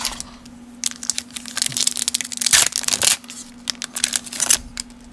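Foil wrapper of a 1991 Studio baseball card pack crinkling and tearing as it is ripped open, in a run of crackles loudest about two and a half to three seconds in.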